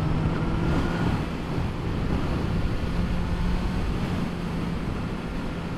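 Wind buffeting the microphone of a Honda CBR1000RR Fireblade SP2 on the move, with the bike's inline-four engine running steadily underneath at a constant cruise.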